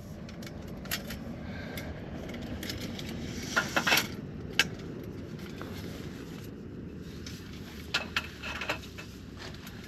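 Scattered light clicks and clatters of the parts of a metal folding table being handled and fitted together, in a few small clusters, over a steady low background noise.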